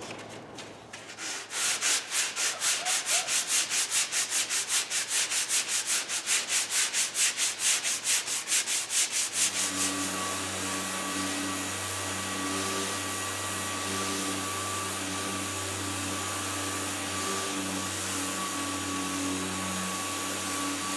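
Hand sanding on a car's door panel: quick back-and-forth rubbing strokes, about five a second. About nine seconds in, an orbital sander takes over and runs steadily with a hum, sanding the repaired bodywork.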